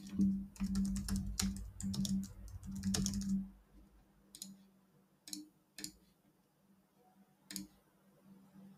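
Typing on a computer keyboard, a quick run of keystrokes for about three and a half seconds, followed by a few separate clicks.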